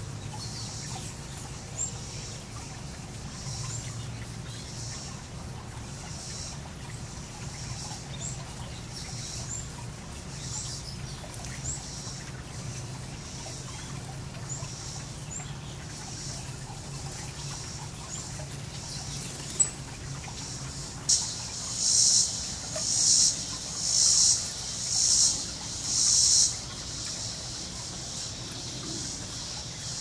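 Shallow water trickling over pebbles, with small birds chirping faintly now and then. After a sharp click about two-thirds of the way through come six loud, high-pitched bursts of noise, about a second apart.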